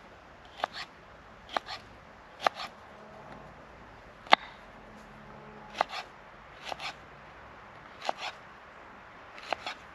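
Kitchen knife chopping peppers on a wooden chopping board: slow, unhurried cuts, about one a second, each a sharp tap of the blade on the board followed by a softer second tap.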